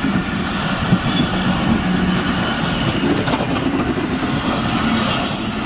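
Pakistan Railways passenger coaches rolling past close by at speed: a steady rumble of steel wheels on the rails, with repeated clicks and one sharp knock about a second in.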